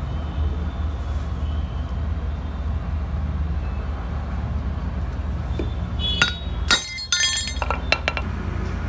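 Steady low rumble, then a quick cluster of sharp metallic clinks with brief ringing about six to eight seconds in, from a steel horn mounting plate and hand tools being handled on a concrete floor.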